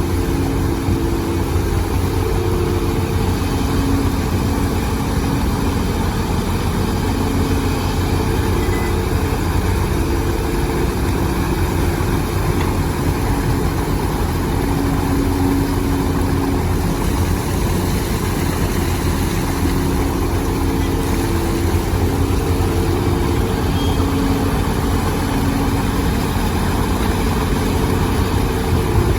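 Excavator's diesel engine running steadily with a continuous low drone.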